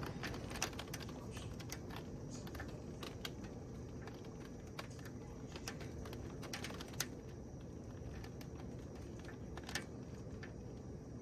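Steady rain with irregular sharp ticks of drops and drips striking a hard surface, a few louder than the rest.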